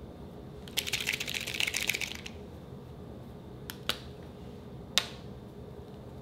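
Crafty Croc liquid chalk marker being shaken, its mixing ball rattling in rapid clicks for about a second and a half. A few single sharp clicks follow, two close together and a third about a second later.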